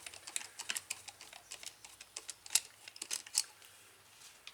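Light, irregular clicks and taps of screws and the drill's plastic housing being handled during disassembly, a few sharper clicks in the middle.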